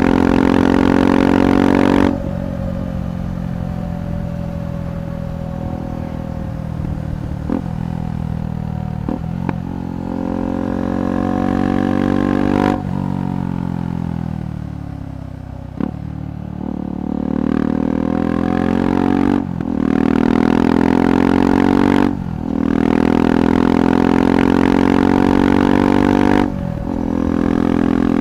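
KTM 390 Adventure's single-cylinder engine through a Red Rooster aftermarket exhaust. It pulls hard at the start, then rolls off, its pitch falling under engine braking with a few sharp pops. It then accelerates again through several gears, dipping briefly at each upshift.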